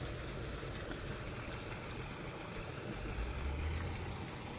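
Low, steady engine hum of distant construction machinery, swelling slightly about three seconds in, under a constant outdoor hiss.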